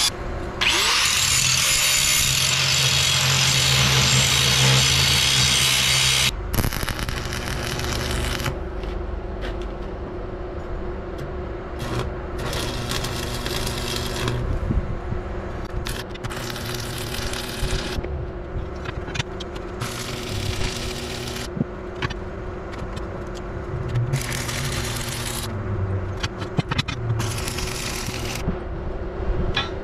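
Angle grinder cutting through steel square tubing, loud and steady for about six seconds before it stops. Then a string of short stick-welding arcs follows, each a second or two of crackling hiss, over a steady low hum.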